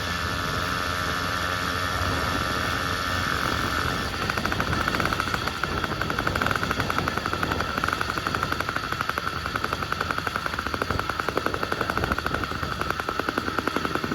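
Phantom 85 80cc two-stroke bicycle engine running, its exhaust popping in a rapid, even beat that becomes stronger and more pulsing about four seconds in.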